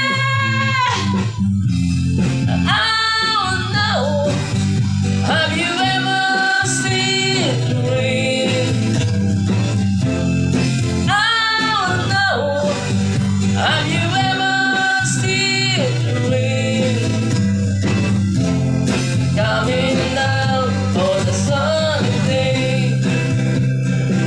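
A rock song with a singer over guitar accompaniment, the voice coming in sung phrases every few seconds over steady backing.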